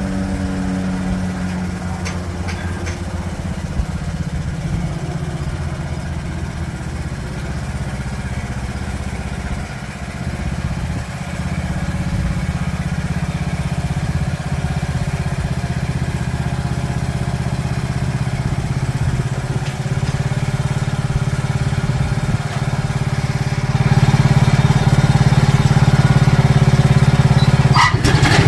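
Riding lawn mower engine running steadily, growing louder near the end.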